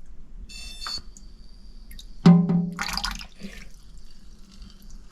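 Small electric motor salvaged from an RC helicopter whining steadily as it spins the boat's propeller, with water splashing and dripping. A brief loud sound comes about two seconds in.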